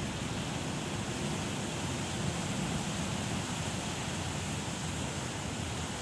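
Steady wind blowing through palm trees: an even rushing noise with a flickering low rumble underneath.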